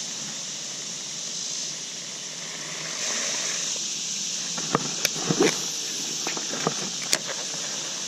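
Steady rush of a shallow, fast-running river current, with a scattered handful of sharp clicks from about halfway through.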